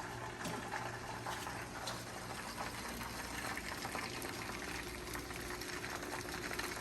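Lumpia spring rolls frying in hot oil: a steady sizzle dotted with many fine crackles.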